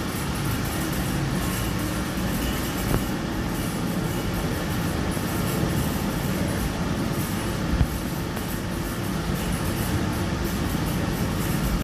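Steady rumble and hiss of a stainless-steel distillation plant at work, with a couple of small clicks.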